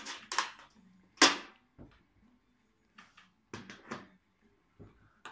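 Sharp clicks and knocks, about ten of them, scattered, the loudest about a second in, from an ash vacuum's parts and hose being handled and fitted together.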